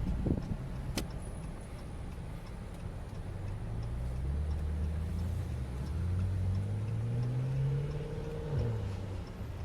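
BMW M6's twin-turbo V8 pulling with revs rising steadily over several seconds, then falling off sharply near the end. A single sharp click about a second in.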